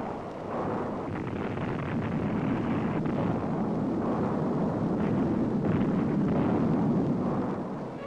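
Long rumble of a dynamite blast and falling rock in a canyon, a steady noise without any single sharp bang, building over the first couple of seconds and fading near the end.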